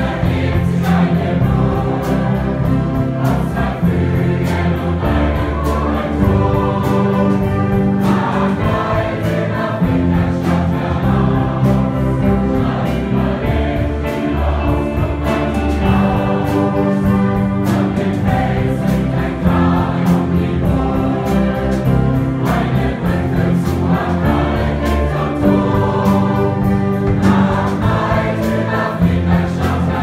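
A school choir singing together with an orchestra and a big band: strings, saxophones and brass accompany the voices.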